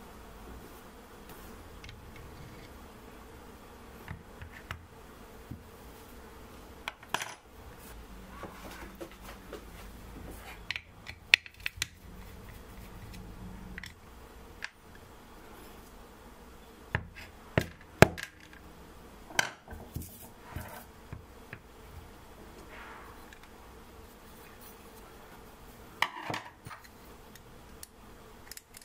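Small brass and steel parts of a model steam engine clinking and clicking as the engine is taken apart by hand and the pieces are set down on a cutting mat. The clicks are scattered and irregular, with a few louder metal clinks spread through.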